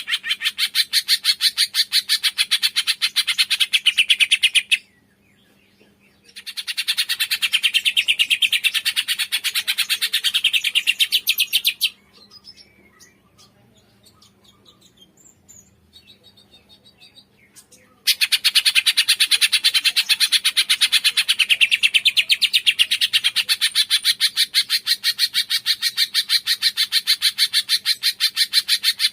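Cungkok bird calling in a long, fast string of sharp repeated chirps. It breaks off briefly about five seconds in, then goes quiet for about six seconds past the middle with only faint scattered calls, and starts again.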